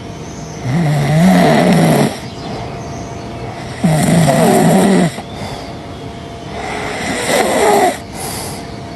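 Loud, drawn-out snoring: three long snores about three seconds apart, each with a wavering pitch.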